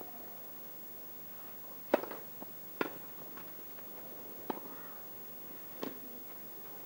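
Tennis rally on a grass court: rackets strike the ball four times, the first and loudest about two seconds in and the others at roughly one- to one-and-a-half-second gaps, with softer ball bounces between, over a quiet crowd hush.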